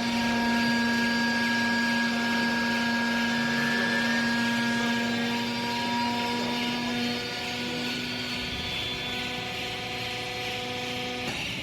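Vertical hydraulic clothing baler's motor and hydraulic pump running with a steady whine. The whine is strongest for the first seven seconds or so, then eases and cuts off suddenly near the end.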